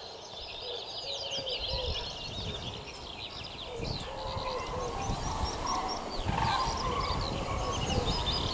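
Common cranes calling, their trumpeting calls coming in about halfway through and growing louder, over a dense chorus of small songbirds twittering high and fast. A low rumble lies underneath.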